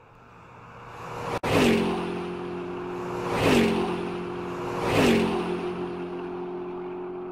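Intro sound effect: three whooshes about a second and a half apart, each sweeping down in pitch like a car rushing past and settling into a steady hum. It swells up from quiet at the start.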